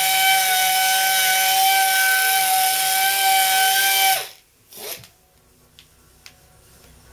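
Small air-powered right-angle polisher with a foam pad running at a steady high whine while buffing polishing compound into fresh paint. About four seconds in it shuts off and spins down, followed by a brief hiss and a few light clicks.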